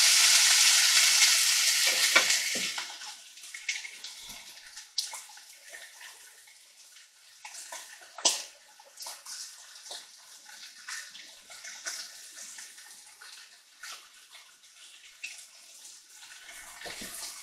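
Beef tri-tip roast searing in a nonstick skillet: a loud sizzle that dies down after about two and a half seconds to faint spitting and crackling pops.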